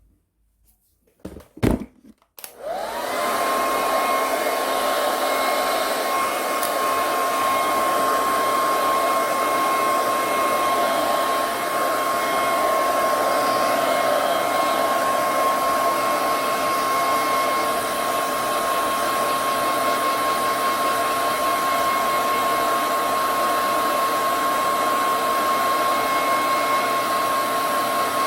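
Hand-held hair dryer: a few clicks, then about two and a half seconds in its motor spins up and it blows steadily. A rush of air runs under a constant high whine.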